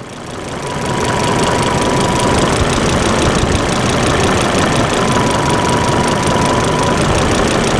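2007 Volvo XC70 engine idling steadily, an engine that is running lean. A faint high tone comes and goes twice over the running noise.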